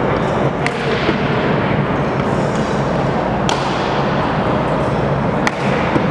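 Three sharp, separate cracks of baseballs striking bats or gloves, over a loud steady hubbub of indoor batting-practice noise.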